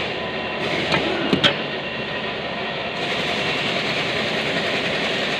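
Steady mechanical background noise with a few faint steady tones in it. Three short, sharp clicks come close together about a second in, typical of transmission parts being handled.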